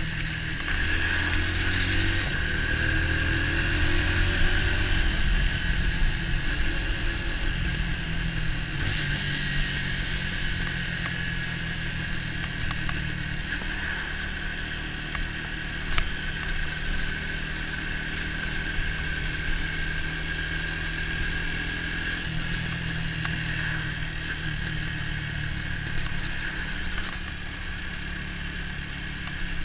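Orcal Astor 125 motorcycle's single-cylinder engine running under way, its pitch rising and falling in steps, with a steady noise band above it and one sharp knock about halfway through.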